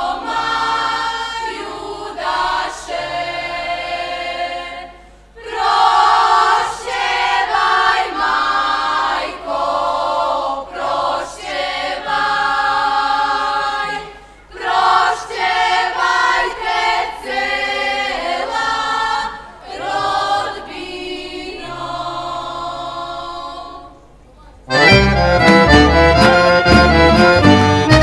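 A group of women singing a traditional Serbian folk song in phrases broken by short pauses. About 25 seconds in, a loud accordion-led folk band strikes up with a steady beat.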